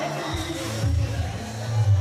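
Latin pop music playing, with a heavy bass line coming in a moment in.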